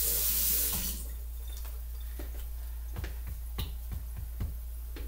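Kitchen tap running for about a second as a spatula is rinsed under it, then shut off, followed by a few light clicks and knocks.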